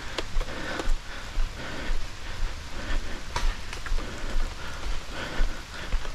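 Footsteps on wet ground in rain, with low thumps as the worn camera jolts at each step. Two sharp clicks stand out, one at the start and one about three and a half seconds in.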